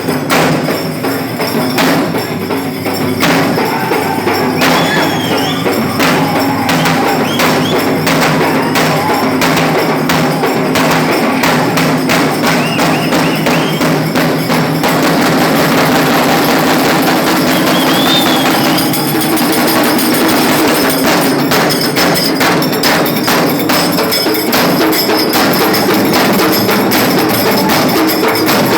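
Loud, busy percussion music with fast, dense drum and rattle strokes keeping up without a break.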